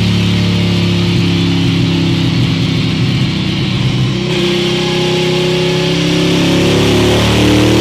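Suzuki SV650's V-twin engine running loud on a motorcycle dyno under load, freshly rebuilt, with music playing over it.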